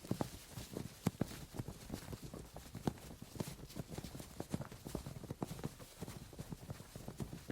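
A group moving through a forest: many irregular, overlapping footfalls and thuds.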